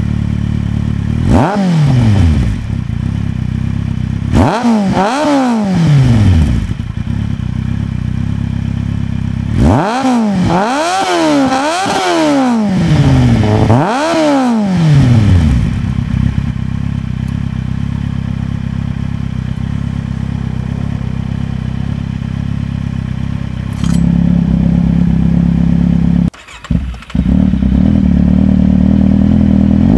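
Kawasaki Z750's inline-four engine through a G&G Moto2 short exhaust with its dB-killer fitted, idling and blipped on the throttle: one short rev about a second in, another about four seconds in, then four quick revs in a row around ten to fifteen seconds, settling back to idle. Near the end the idle turns louder, with the dB-killer baffle now removed, briefly cut by a gap, and the revs start rising again right at the close.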